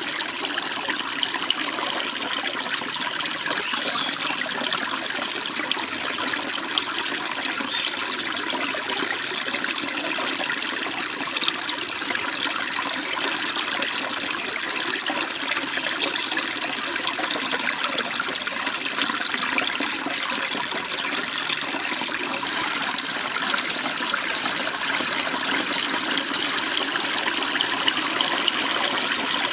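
Stream water babbling and splashing steadily.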